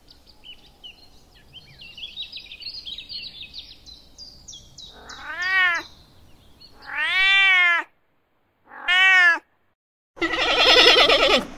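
Domestic cat meowing three times, each call a drawn-out rising-then-falling meow, after a stretch of faint high bird chirps. Near the end a loud, harsh animal call starts and is the loudest sound.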